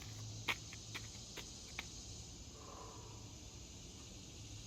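Steady chorus of insects, such as crickets, with a few faint sharp clicks in the first two seconds.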